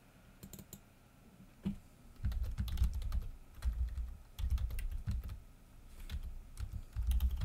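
Typing on a computer keyboard: a few separate clicks in the first second, then bursts of keystrokes from about two seconds in, each with a dull low thud.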